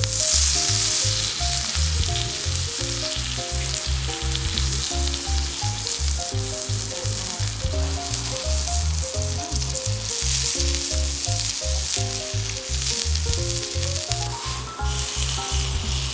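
Beef steak sizzling on a heated rock salt plate, a steady crackling hiss of fat and juices frying against the salt. Background music with a steady bass beat and a plucked melody plays along with it.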